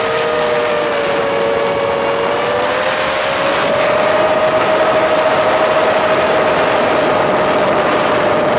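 The brushless motors and propellers of a 7-inch FPV quadcopter whine steadily, heard from a camera mounted on the drone, over a hiss of rushing air. The pitch wavers slightly as the throttle changes, and two close tones from the motors merge into one about a second in.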